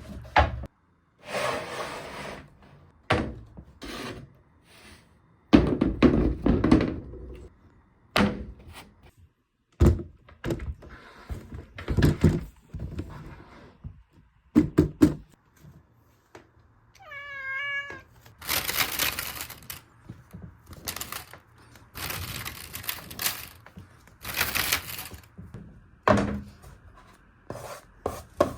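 Balls and marbles knocking and clattering down a handmade marble run in irregular bursts. A cat meows once, a wavering call of about a second, partway through.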